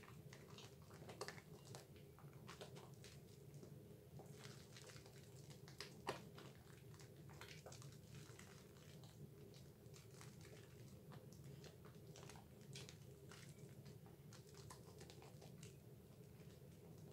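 Soapy hands kneading a lathered Dove bar soap: the thick foam squishes and crackles in faint, quick, irregular clicks.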